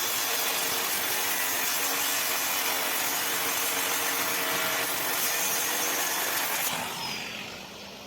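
Angle grinder grinding steel: a steady, loud grinding noise that is cut off about seven seconds in, the tool then winding down.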